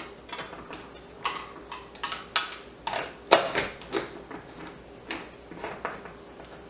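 A self-burping fermentation lid being screwed onto a glass mason jar, giving a run of irregular clicks and scrapes as it turns on the threads.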